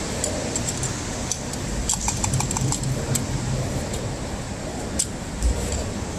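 Small metallic clicks and clinks of an impact-wrench socket being fitted onto car wheel lug nuts, over a steady background hum.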